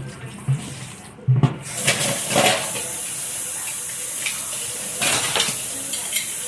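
Kitchen tap running steadily into a sink after a few clatters of dishes, with light knocks of dishes now and then while the water runs.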